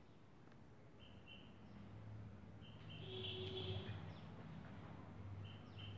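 Faint bird chirping: a few clusters of short, high, even-pitched notes, over a low steady hum.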